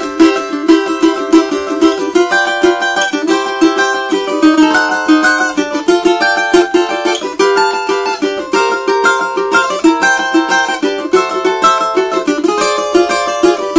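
Steel-string cavaquinho with an imbuia body, strummed with a pick in rapid, steady chords that change every second or so. The instrument is brand-new.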